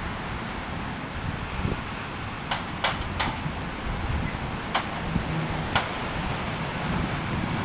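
Tornado wind rushing steadily, picked up by a CCTV camera's microphone, with five sharp clicks between about two and a half and six seconds in.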